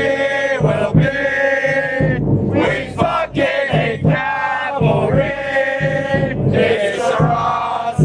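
A football supporters' section chanting in unison: loud, drawn-out sung phrases from many male voices, with short breaks between them.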